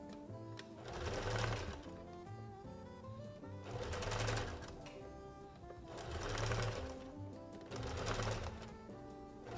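Household electric sewing machine stitching through the thick double-layer edge of a fabric oven mitt, running in four short spurts of about a second each with pauses between, over soft background music.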